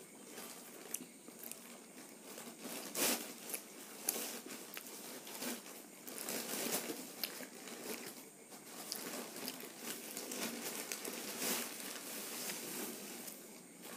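Close-miked eating of panipuri: crisp fried puri shells crunching between the teeth, with chewing and irregular crackles and a louder crunch about three seconds in.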